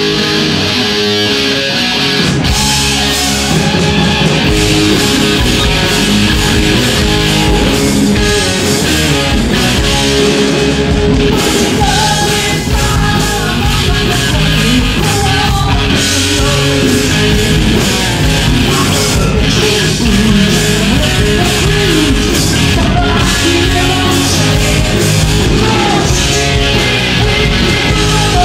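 Southern rock band playing live: electric guitars, bass and drums, with a man singing lead. The full band kicks in about two seconds in.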